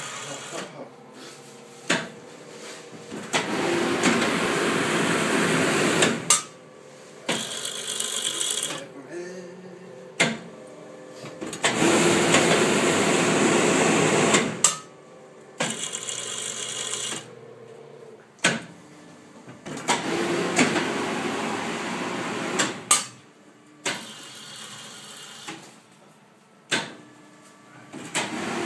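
Minipack FM76 shrink-wrapping machine working through repeated cycles: a loud rushing noise lasting about three seconds comes back every eight seconds or so, with quieter machine noise between and sharp clicks and clunks every few seconds.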